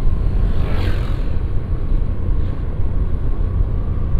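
Steady low rumble of wind and road noise while riding a Honda Beat automatic scooter, with a brief whoosh about a second in.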